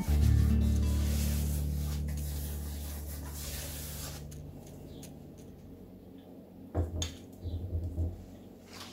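The last chord of an acoustic guitar music track rings on and dies away over about four seconds. A soft knock follows about seven seconds in, then a few smaller knocks and rustles.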